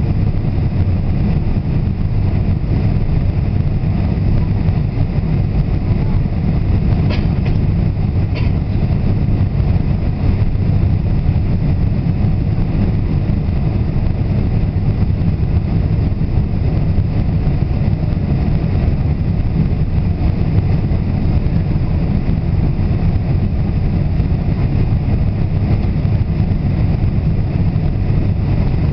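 Steady low rumble of a Boeing 747 passenger cabin in flight on approach: engine and airflow noise heard from inside at the window seat. Two faint clicks come about seven and eight seconds in.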